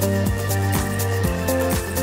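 Electronic theme music with a steady beat and a bass line.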